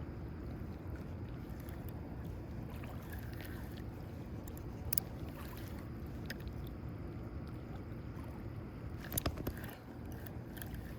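Steady low rushing of moving water, with a few sharp clicks or knocks about five seconds in and again near the end.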